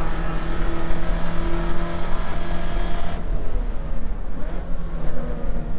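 Holden 308 V8 of a VK Commodore race car heard from inside the cabin, running hard at steady revs; about three seconds in the note turns suddenly softer and duller as the engine comes off full power.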